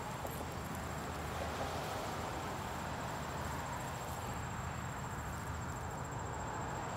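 Outdoor ambience: a steady, high-pitched insect trill over a faint low background rumble.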